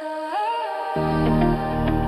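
Opening of a soft chill electronic track: a sustained lead tone slides up in pitch, and about a second in a deep bass and beat come in under a repeating synth pattern.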